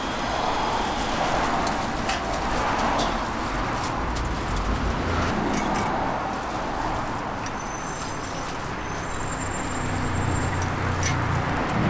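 Street traffic noise: a steady rumble of passing vehicles with scattered clicks and knocks. Near the end a lower engine hum grows louder as a vehicle comes close.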